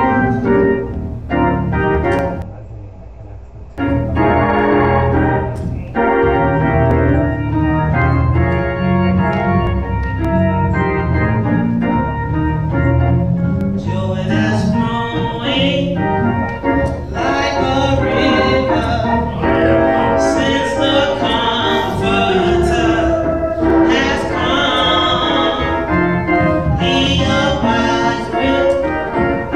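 Church organ playing held gospel chords, with a dip in level a few seconds in. About halfway through a woman's solo voice comes in, singing over the organ.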